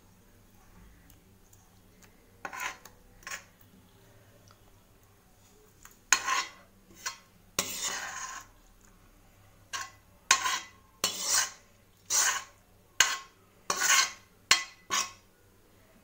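A spoon scraping sticky tomato chutney out of a metal pan into a glass bowl, clinking against the pan. About a dozen short scrapes come at uneven intervals, starting a couple of seconds in.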